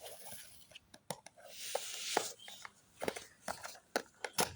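Packaging being handled during an unboxing: a series of clicks and taps, with a longer rustling, tearing noise about a second and a half in.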